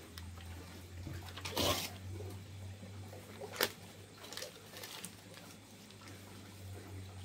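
Hands handling small objects: a rustle about one and a half seconds in, a sharp click about two seconds later and a few softer taps, over a low steady hum.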